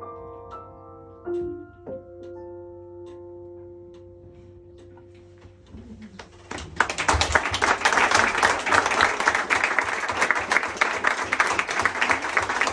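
An upright piano plays the closing notes of a song, the last chord held and slowly fading. About seven seconds in, the audience bursts into loud applause that runs on through the rest.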